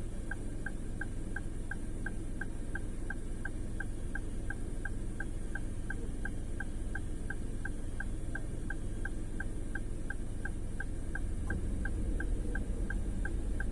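Perodua Axia's indicator relay ticking steadily, about three ticks a second, inside the cabin of the stationary car, over the low hum of its engine idling.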